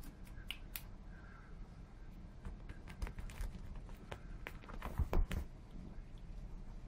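Sphynx kittens play-fighting, their claws and paws scrabbling on a blanket-covered leather sofa: a run of light scratches and taps, thickest and loudest from about the middle to around five seconds in.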